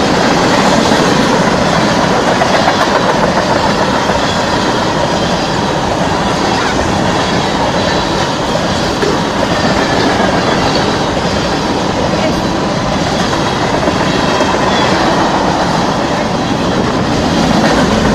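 Train passing close by on the track at about 60 mph: a loud, steady rumble and rattle of its wheels running over the rails, with a faint wheel squeal.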